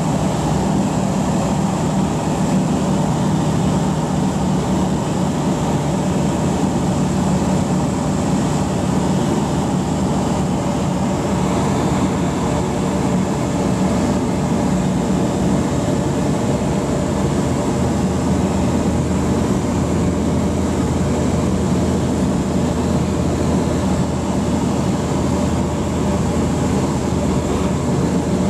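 Evektor EuroStar light aircraft's engine and propeller droning steadily in flight, heard inside the cabin with airflow noise. About two-thirds of the way through, the engine note drops lower.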